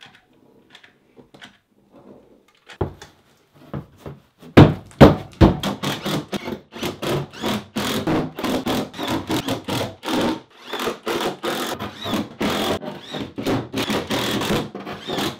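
Loud knocks about four to five seconds in, then a cordless impact driver hammering screws with washers through Wedi foam board into the wall studs, running in several spells with short pauses.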